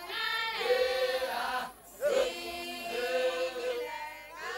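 Choir singing long held notes in two phrases, with a brief pause about two seconds in.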